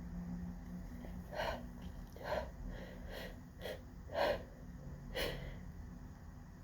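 A person's short, sharp gasping breaths and sniffs during a sneezing fit set off by pollen: about six quick breaths over a few seconds, each much softer than a sneeze.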